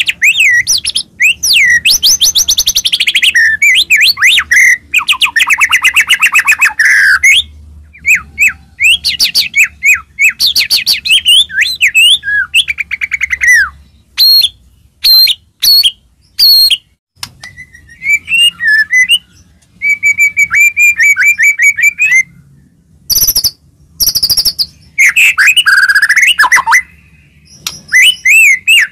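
White-rumped shama (murai batu) singing loudly in varied phrases of rich whistles, rapid trills and fast repeated notes, with short pauses between them.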